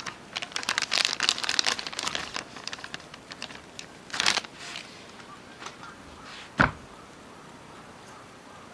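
Crinkling and rustling of handled material, with a dense run of small clicks over the first few seconds, a short rustle about four seconds in, and a single sharp knock about two-thirds of the way through.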